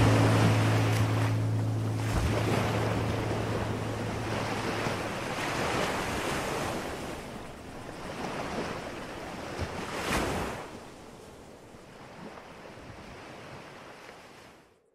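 Small sea waves washing against a rocky shore, in swells with one sharper splash about ten seconds in, with some wind. A low held chord of music dies away in the first few seconds, and the surf fades out to nothing at the end.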